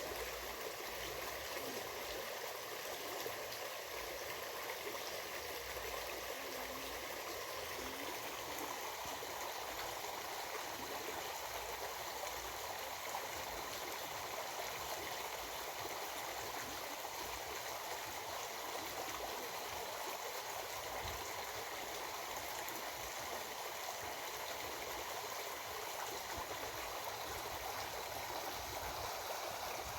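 Stream water flowing, a steady, unbroken rush.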